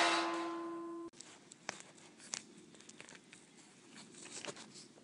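Metallic ringing left by an air-gun shot, fading over about a second and then cutting off abruptly. After it come only faint scattered clicks and scuffs.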